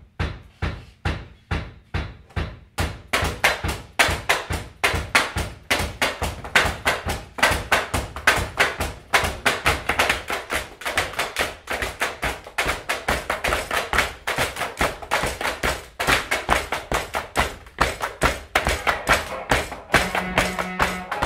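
Rhythmic tapping and thumping on classroom desks, single hits about twice a second at first, building into a dense, busy rhythm from about three seconds in. Near the end, sustained pitched instrument notes join the beat.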